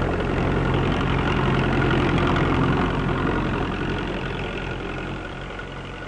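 Tractor engine running steadily as it draws a seed drill, with a low, even hum under it. It fades gradually through the second half.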